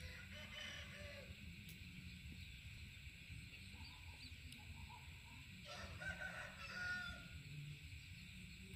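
Faint rooster crowing twice, once at the start and again about six seconds in.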